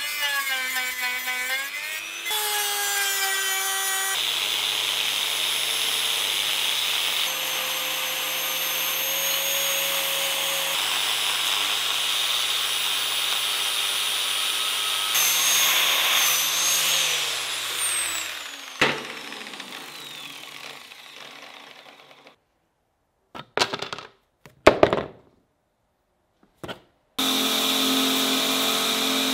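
Power tools grinding steel on an axe head. First a small rotary tool with a sanding drum whines, its pitch shifting under load. Then an angle grinder with a flap disc runs with a steady tone and grinding noise, and spins down with a falling whine. After a few seconds of near quiet broken by a few brief sounds, a belt grinder starts running near the end.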